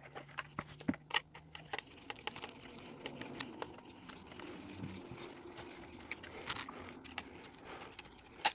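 Light scattered clicks and taps of a screwdriver working the mounting screws of a guitar pickup as it is fitted, with one sharper click near the end.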